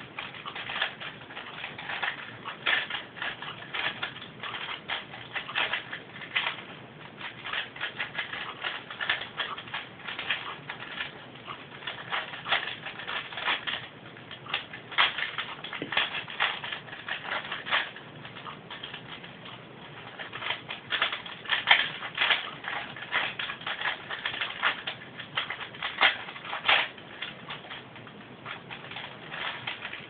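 Plastic 4x4x4 Rubik's Cube being twisted by hand: rapid, irregular clicking and clacking of its layers turning, in quick flurries with brief lulls.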